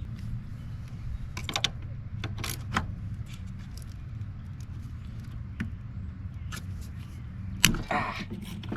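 Scattered light metallic clinks and rattles of hand tools and small fasteners being handled, with one sharp clank near the end, over a steady low hum.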